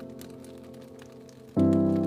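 Soft background music: a held chord fades away and a new chord is struck about one and a half seconds in, over the faint crackle of a fireplace.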